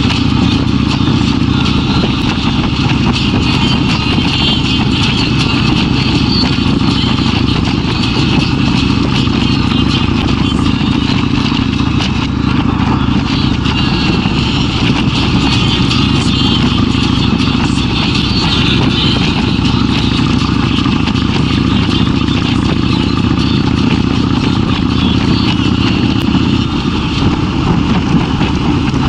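Kawasaki Vulcan 1600's V-twin engine running steadily while cruising at an even speed, with a steady rush of wind and road noise over it.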